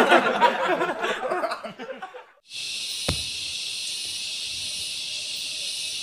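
Several men laughing and talking, fading away over the first two seconds; after a brief silence, a steady high-pitched hiss of forest ambience sets in, with a single click about three seconds in.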